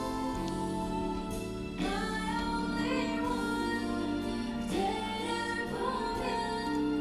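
Background song with a singing voice, slow held notes that slide into new pitches every second or two over a steady instrumental backing.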